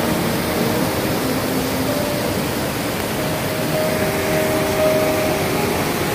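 Small waterfalls rushing over mossy travertine steps: a steady, full hiss of falling water, with faint held notes of soft music underneath.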